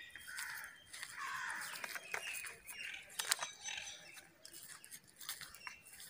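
Several birds chirping and calling, with harsh squawking calls in the first two seconds and a few sharp clicks, the loudest about three seconds in.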